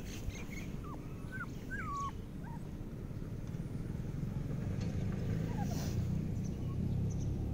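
Doberman puppies whimpering: a few short, high, sliding whines, most in the first two seconds and one more near the end, over a steady low rumble.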